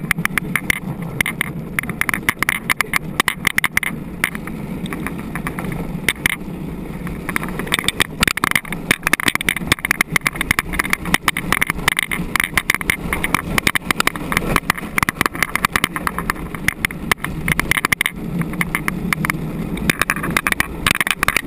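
Luge cart rolling fast down a concrete track: a steady low rolling noise with dense, irregular rattling and clicking from the wheels and frame.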